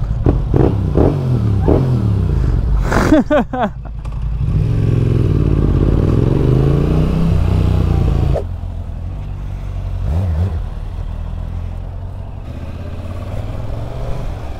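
Yamaha R7's parallel-twin engine on its stock exhaust, accelerating through the gears with its pitch climbing in several short runs, then one longer climb. About eight seconds in the throttle closes sharply and the engine settles to a lower, steady run.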